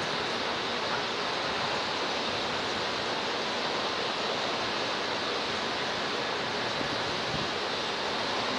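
A steady, even rushing hiss with no distinct bird calls.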